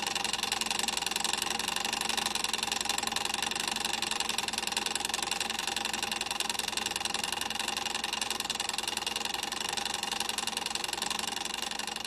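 A small machine running with a steady, rapid mechanical clatter that does not change.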